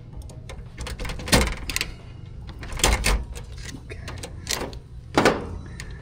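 A series of sharp clicks and knocks, about six in all, from hand tools and metal parts being handled while wires are taken off and refitted on an air conditioner's contactor, over a steady low hum.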